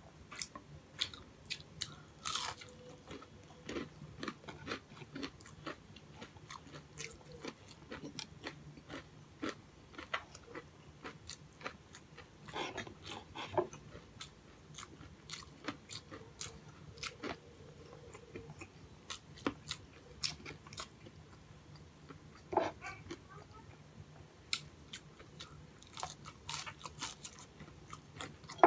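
A man chewing and crunching crispy breaded fried pork chop: a steady stream of irregular sharp crackles and mouth clicks, with a few louder crunches scattered through.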